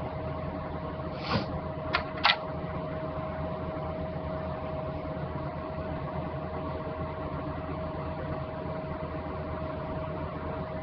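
Steady electrical hum and fan-like background noise with a constant whine, broken by three short clicks between about one and two and a half seconds in.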